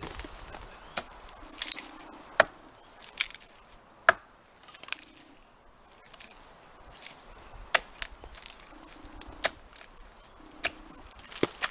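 Hatchet chopping a chaga conk off a birch trunk: about a dozen sharp chops at uneven intervals, with a pause of a couple of seconds midway.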